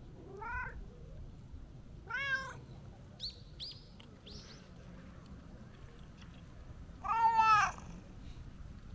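A brown tabby-and-white cat meowing three times: a short rising meow near the start, another about two seconds in, and the loudest, longest meow about seven seconds in.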